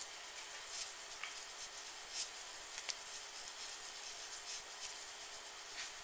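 Faint, scattered taps of a knife cutting string cheese into chunks on a paper plate, over a steady hiss.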